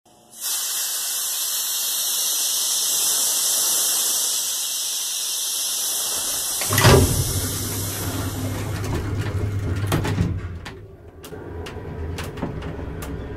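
Title sound effects: a loud steady hiss lasting about six seconds, then a sudden heavy hit that gives way to a low rumble with scattered sharp clicks and a second hit about three seconds later.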